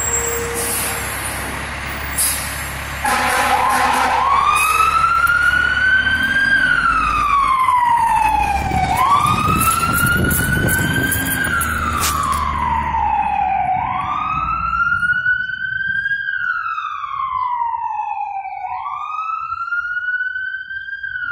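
Fire truck's diesel engine rumbling, then its siren starts about three seconds in: a slow wail rising and falling about every five seconds. The engine rumble fades out near the end as the truck moves off, while the wail goes on.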